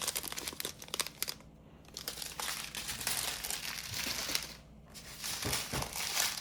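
Small plastic bags of diamond-painting drills crinkling and rustling as they are handled, with two short pauses.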